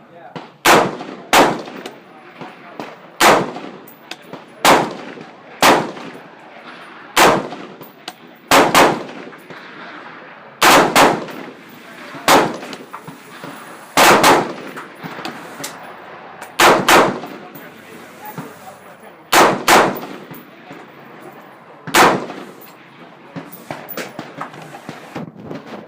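Spikes Tactical AR-15 rifle firing .223/5.56 rounds semi-automatically: about eighteen shots at an uneven pace, several in quick pairs, each with a short echo trailing off.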